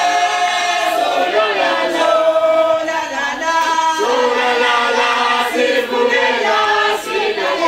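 A crowd of voices singing together, a traditional South African tribal song with long held notes that change pitch together.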